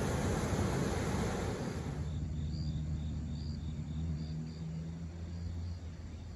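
Steady rush of water released at the foot of a concrete gravity dam, cutting off about two seconds in. Then an insect chirps in short, high notes about three times a second over a low steady hum.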